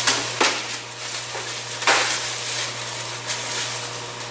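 Tools or parts handled off camera in a workshop: a few sharp knocks and clacks within the first two seconds, over a steady hiss and low hum.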